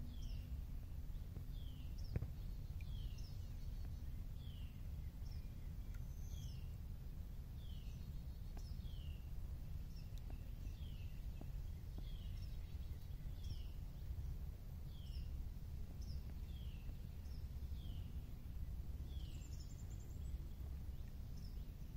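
A bird calling over and over, a short falling chirp about once a second, sometimes with a higher note after it, over a steady low rumble.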